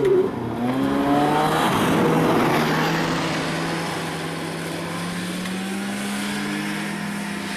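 An engine running: a steady hum that climbs slightly in pitch in the second half, over a surge of noise that peaks about two seconds in and then eases off.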